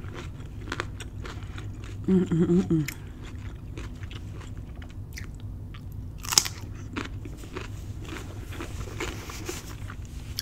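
Close-miked eating sounds. A raw cucumber slice is bitten with one sharp crunch about six seconds in, the loudest sound here, amid small chewing and lip-smacking clicks.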